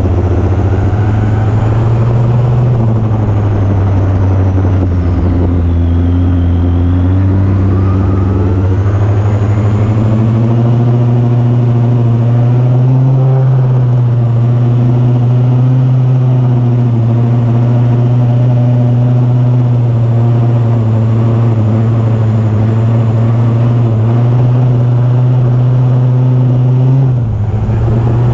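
Weedeater engine in a converted 1999 T-Maxx RC truck running hard at high revs, its pitch shifting a little as the throttle changes, with a brief drop in revs about a second before the end.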